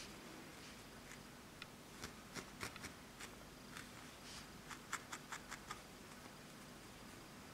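Felting needle jabbing repeatedly into wool over a felting mat: faint, irregular ticks and scratches, bunched in the middle few seconds.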